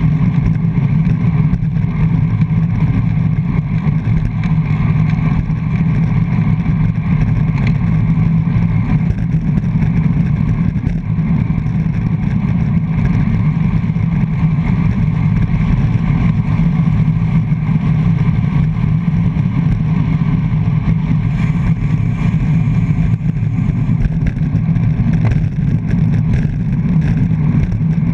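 Steady, loud wind rumble buffeting a GoPro camera mounted on the front of a road bike ridden at race speed.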